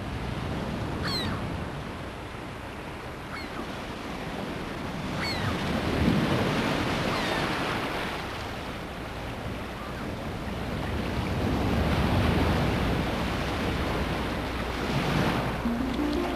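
Waves washing on a shore with wind, the rush swelling and fading every few seconds. Short high chirps come about every two seconds in the first half.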